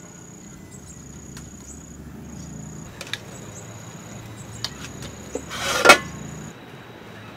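Metal ladle stirring and scooping in a large pot of steaming soup, with small clinks and one loud short clatter of the ladle against the pot a little under six seconds in. Insects chirp in an on-off high thin tone behind it.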